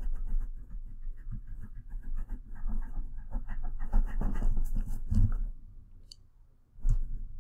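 Scratching of a drawing tool on paper in short strokes, with low thuds of the hand and paper on the desk, the loudest a little after five seconds in. The scratching stops about five and a half seconds in, and there is one sharp tap near the end.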